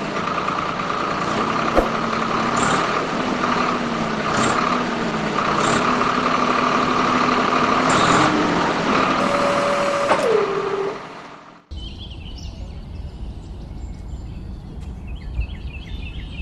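The small electric motor of a homemade mini tractor whines steadily, its pitch wavering, while the tractor's trolley tips its load. About ten seconds in the whine falls away as the motor winds down. Then the sound cuts to a quieter low rumble with faint chirping.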